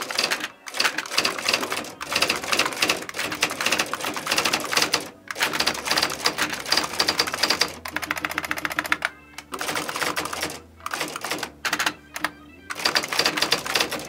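IBM Wheelwriter 10 Series II electronic typewriter printing a line of text: runs of rapid daisy-wheel strikes broken by short pauses. A little past the middle it briefly changes to finer, faster ticking over a low hum.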